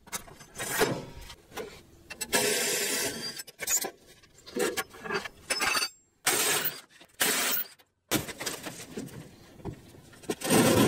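Hammer knocking on the steel braces and frame of a rammed earth wall form to free it, in a string of separate metal clanks and rattles.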